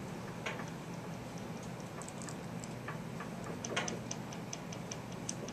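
Dry-erase marker writing on a whiteboard: a run of short, high squeaky ticks, sparse at first and then several a second from about two seconds in, with a louder tap about four seconds in.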